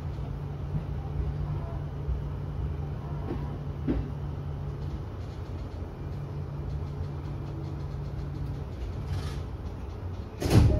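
Electric commuter train heard from inside the driver's cab, running slowly along a station platform with a steady low hum. Near the end comes a sudden loud burst of noise.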